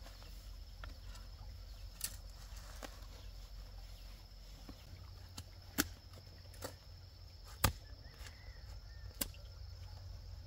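A digging tool strikes into soil with about six sharp, irregularly spaced thuds, the loudest about two-thirds of the way through, as a planting hole is dug or worked.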